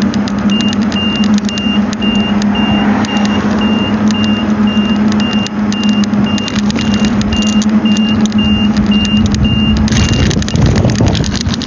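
Car cabin: a steady low engine hum under a car's electronic warning beeper sounding short high beeps about twice a second, which stop about ten seconds in, followed by a louder rush of noise.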